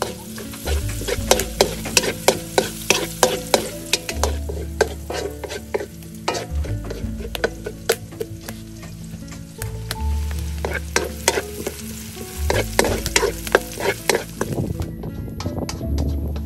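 Chopped onions and garlic sizzling in oil in a large metal wok, stirred with a wooden spatula that knocks and scrapes against the pan in quick, irregular clicks, in two spells of busy stirring.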